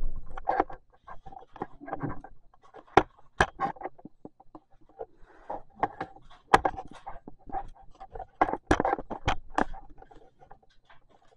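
Irregular knocks, clicks and light scrapes, as of objects being handled and set down on wood, loudest in a cluster near the end.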